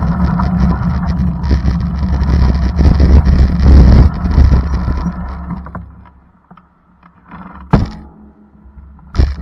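Road vehicle ride noise: a loud low rumble with crackling that fades away about five to six seconds in. Then two sharp thumps about a second and a half apart near the end.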